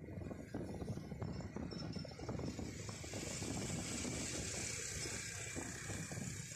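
Road noise heard from a moving vehicle: a low rumble with irregular rattling, and a steady hiss that comes in a few seconds in.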